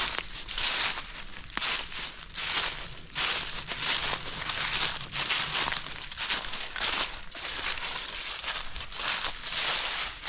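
Footsteps crunching through thick dry leaf litter on a wooded slope, about two steps a second.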